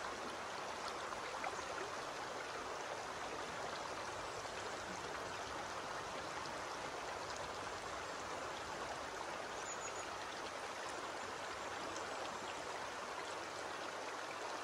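Shallow stream running over stones and pebbles: a steady, even rush of flowing water.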